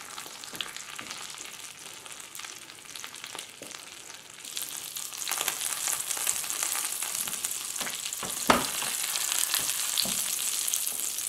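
Floured cod fillet frying in hot oil and butter in a pan: a steady high sizzle with fine crackling that grows louder about halfway through, and one sharp louder pop a little later.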